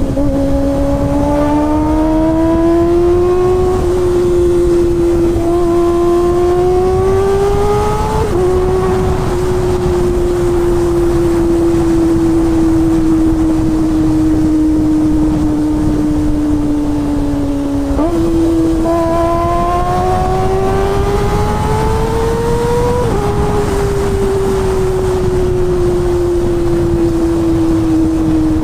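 Kawasaki ZX-25R's 250 cc inline-four engine running at high revs under way. Its note rises and drops with gear changes about 4 and 8 seconds in, then sinks slowly. It jumps up sharply at about 18 seconds, climbs again, and drops at a shift about 23 seconds in.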